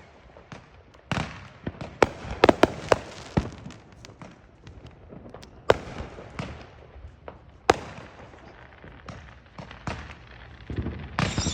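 Neighborhood fireworks going off: scattered sharp bangs and crackling pops at irregular intervals, a quick flurry of them in the first few seconds, then single loud reports. Just before the end a high whistle starts and falls in pitch, like a whistling firework.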